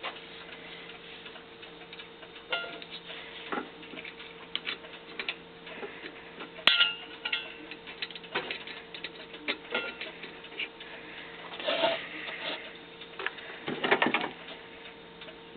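Irregular light clicks and short scraping sounds as a clock reamer in a drill press is worked in a brass clock plate to open up a worn pivot hole, over a steady low hum.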